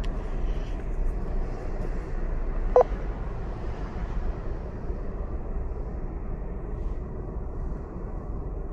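Steady low background rumble, with one short beep about three seconds in.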